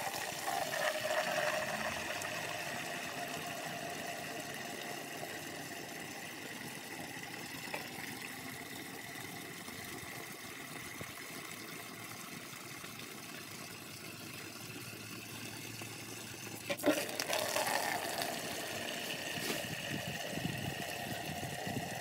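Outdoor garden tap running at full flow, water pouring steadily into a plastic bucket. About 17 seconds in there is a knock, and the sound of the pouring changes.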